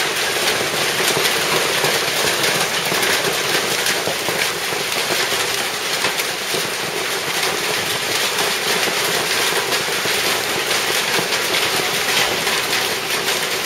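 Hailstorm: hail and heavy rain pelting paving stones and café furniture, a steady, dense patter of countless small impacts.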